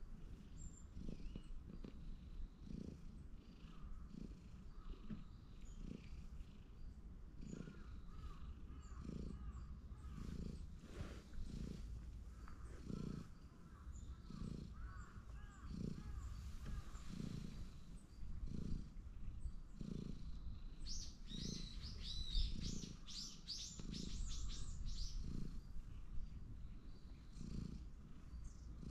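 Domestic cat purring steadily on a lap, close to the microphone, with a soft pulse about once a second as it breathes in and out.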